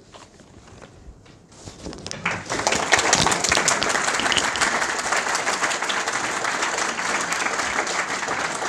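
Audience applauding. The first two seconds are quiet, then the clapping swells and holds steady.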